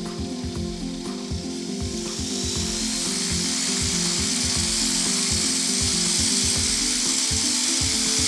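Background music over the engine and wind noise of a Rotax 912ULS-powered microlight trike, the hiss growing steadily louder from about two seconds in as power comes up for the takeoff roll.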